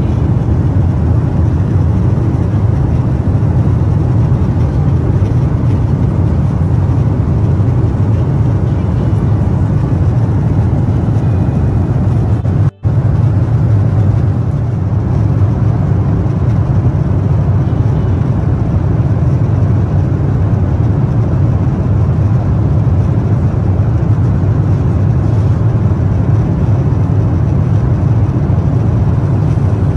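Steady, loud low drone of a Boeing 777-300's cabin in flight: jet engine and airflow noise heard from an economy seat, with a momentary break about 13 seconds in.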